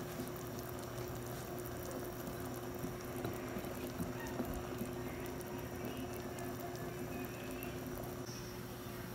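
Chicken tinola broth boiling in a pot: a steady bubbling. There are a few light clicks about three to four seconds in, and a steady low hum runs underneath.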